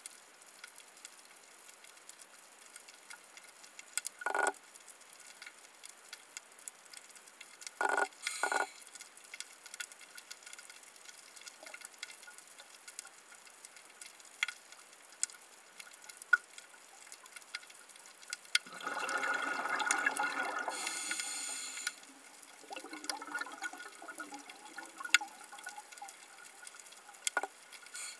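Underwater reef ambience: a steady crackle of small sharp clicks, with short bubbling bursts about 4 and 8 seconds in and a longer, louder rush of bubbles about two-thirds of the way through.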